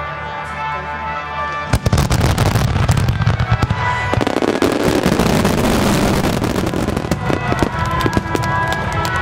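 Starmine fireworks barrage: about two seconds in, a rapid salvo of bangs and dense crackling breaks out and keeps going, with music playing underneath.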